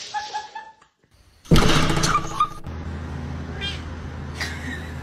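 Domestic cat meowing: one loud, drawn-out meow about a second and a half in, then two short, fainter meows near the end, over a steady low hum.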